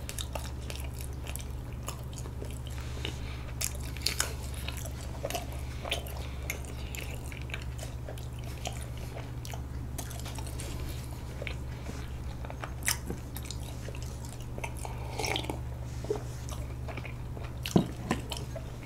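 Close-miked chewing of soft, sticky rice cake filled with sweet red bean paste: scattered small wet clicks and smacks of the mouth, with a sharper click near the end, over a steady low hum.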